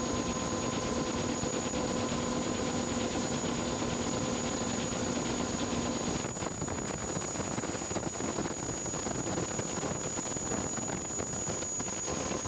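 Steady mechanical rushing noise with a low hum that drops out about halfway through, over a faint high whine.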